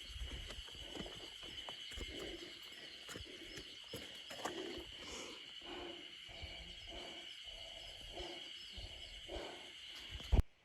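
Mountain forest trail ambience: a steady high-pitched drone with small bird chirps over it, and rhythmic low thuds of walking steps. It ends with a sharp click that cuts the sound off.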